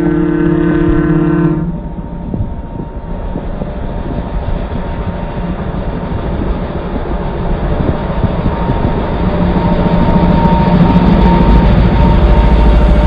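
A horn sounding one held blast that cuts off about a second and a half in, followed by heavy engine noise that builds steadily louder toward the end.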